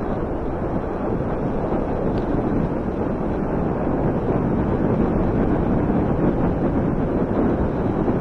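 Wind buffeting the microphone of a bicycle-mounted camera while coasting fast downhill: a steady rushing noise, heaviest in the low end.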